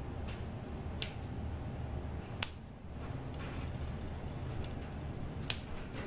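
Kitchen shears snipping through the strands of a mesh grilling rack: three sharp snips, about a second in, near halfway and near the end, with a few fainter clicks between, over a steady low hum.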